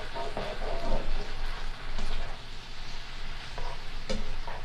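Chicken stock sizzling and bubbling in a hot skillet of sliced bell peppers and onions as the pan is deglazed, with occasional scrapes of a slotted spatula against the pan as it is stirred.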